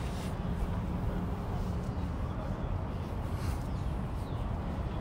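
Outdoor waterfront city ambience: a steady low rumble with faint scattered sounds above it.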